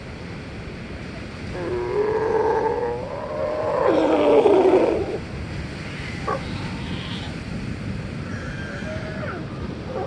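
Sea lions barking: two long, wavering calls between about one and a half and five seconds in, then a few shorter ones, over the steady wash of ocean surf.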